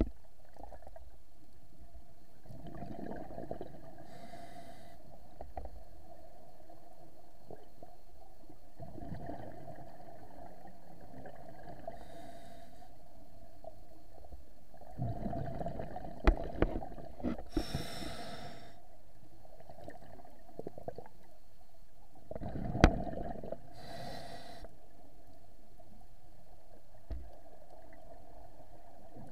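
A scuba diver breathing through a regulator underwater, heard through the camera housing: four slow breaths about six seconds apart, each a gurgling rumble of bubbles ending in a short hiss. A few sharp clicks come in the middle, the loudest about 23 seconds in.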